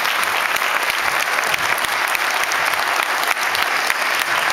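Audience applauding, a dense steady clapping at an even level.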